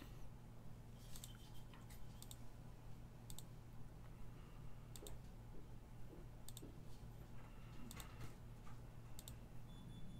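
Computer mouse clicking repeatedly, sharp clicks often in quick pairs every second or two, as a web page's list randomizer is re-run over and over. A low steady hum runs underneath.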